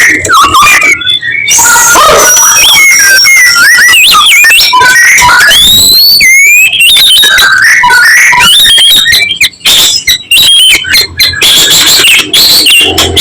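White-rumped shama singing loudly: a fast, varied stream of clear whistled notes that glide up and down, with a burst of sharp clicking chatter about two-thirds of the way through.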